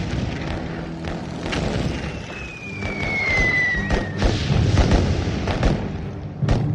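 Battle sounds of gunfire and artillery explosions: repeated sharp shots and heavy booms over a continuous rumble, with a falling whistle from about two to four seconds in.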